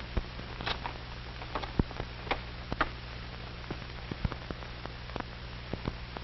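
Surface noise of an old film soundtrack: a steady low hum and hiss, with scattered crackles and pops throughout.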